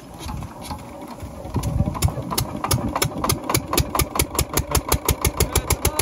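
Petrol engine of an irrigation water pump starting about a second and a half in, its firing beats quickening from about three to about seven a second as it picks up speed and runs.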